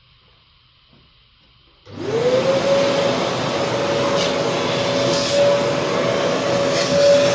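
A motor spins up about two seconds in, then runs steadily with a whine over a loud airy rush, like a vacuum cleaner.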